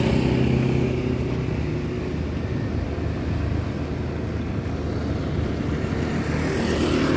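Large bus diesel engine idling steadily, with an even low drone that holds through the whole stretch.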